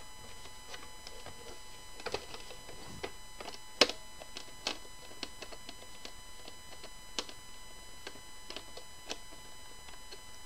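Scattered light clicks and taps of a Phillips screwdriver turning out the cover screws of a plastic Davis VantageVUE weather-sensor housing, with one sharper click about four seconds in.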